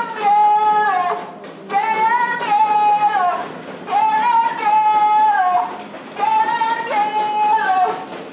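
Female singing: four long, high held notes in a row, each sliding down at its end, with short breaths between.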